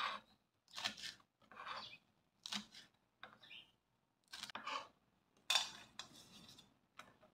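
Kitchen knife slicing green chilies on a plastic cutting board: a series of separate short cuts, one every half second to a second, with a louder scrape about five and a half seconds in.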